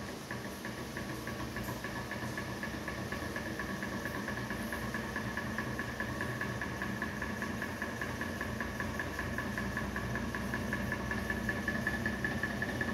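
Antique hot-air (Stirling-type) lamp fan running, its heat engine beating fast and even under a steady whine. It grows slowly louder as the fan picks up speed.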